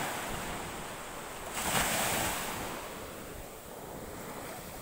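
Small waves breaking and washing up a sandy beach: a steady surf rush that swells into a louder wash about a second and a half in, then eases off.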